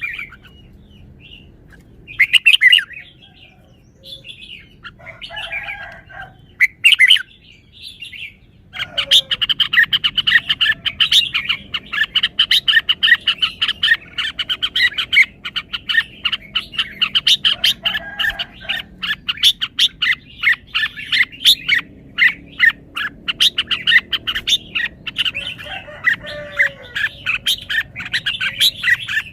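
Red-whiskered bulbul singing: a few separate warbled phrases, then, about a third of the way in, a long dense run of rapid chirps.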